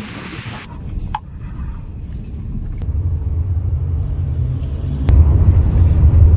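Low road and engine rumble heard from inside a moving Toyota SUV taxi, building steadily and loudest near the end.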